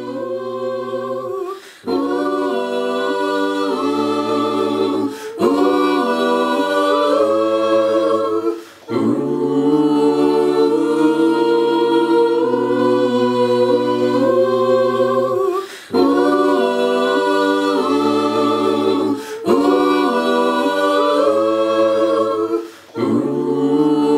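A group of men and women singing a song together in harmony, in phrases of a few seconds with short breaks between them.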